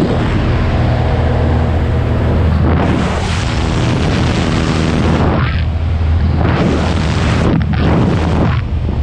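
Wind rushing and buffeting the microphone in uneven gusts through the open door of a small high-wing propeller plane, over the steady drone of its engine and propeller.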